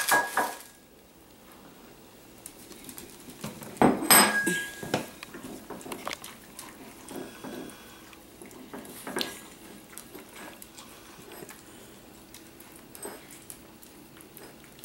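Italian greyhounds licking out a plastic bowl on a hardwood floor: the bowl knocks and scrapes as they lick, with a louder clatter about four seconds in and scattered small clicks and licks after it.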